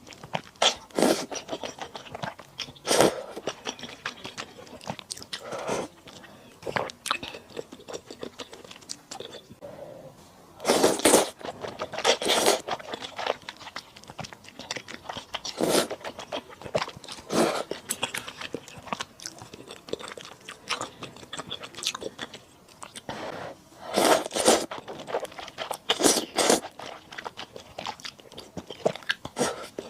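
Close-miked eating of malatang with thick rice noodles: wet chewing and crunching in irregular bursts. A few louder ones last about a second, around eleven seconds in and again around twenty-four seconds in.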